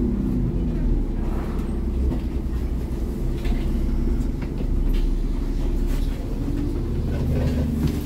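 ADL Enviro 400 double-decker bus's diesel engine heard from on board, a steady low rumble. The engine note drops away at the start and builds again near the end, with a few light rattles in between.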